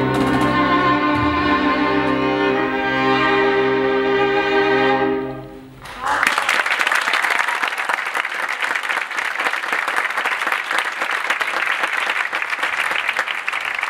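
A string ensemble of violins, cello and double bass holds a sustained closing chord that fades out about five seconds in. The audience then breaks into steady applause.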